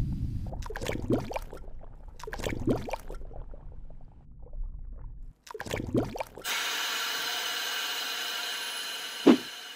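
Water gurgling and sloshing around a toy submarine pushed along a pond bottom by hand, heard underwater as a low rumble with a few sharp gurgles. A steady hiss follows in the second half, and a single thump comes near the end.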